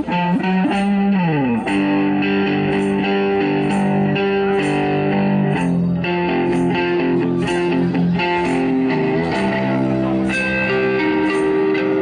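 Electric blues guitar played on a white double-neck electric guitar through a small amplifier: a note slides down about a second in, then held notes and chords ring on, with faint percussion ticks keeping a steady beat.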